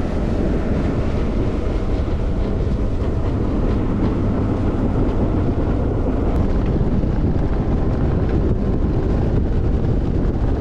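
Bass boat running across the lake at speed on its outboard motor: a steady engine drone and rush of water, with wind on the microphone.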